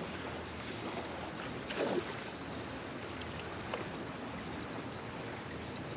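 Small waves lapping against the hull of a bass boat, with wind on the microphone; one brief louder sound about two seconds in.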